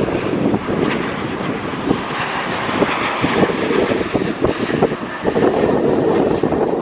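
Bombardier CRJ1000's two rear-mounted General Electric CF34 turbofans running as the jet passes low on final approach, gear down: a steady jet rush with a faint high whine coming in about halfway through. Gusts of wind buffet the microphone throughout.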